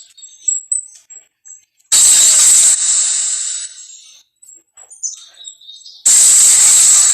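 Two loud, harsh monster sound effects, each cutting in suddenly and fading away, about four seconds apart, with faint chirps and clicks between them.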